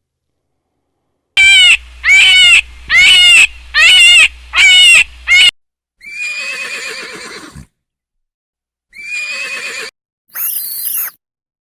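A farm animal calling: six loud, short, wavering cries in quick succession, then after a pause two longer cries that fall in pitch, and a brief shrill cry near the end.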